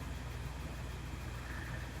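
Steady low mechanical hum with no break or change.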